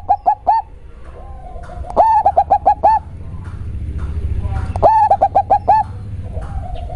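Local zebra dove (perkutut) singing its cooing song, a deep, bassy voice: two full phrases, each a longer opening coo followed by about five quick rolling notes, about three seconds apart, with the tail of another phrase right at the start.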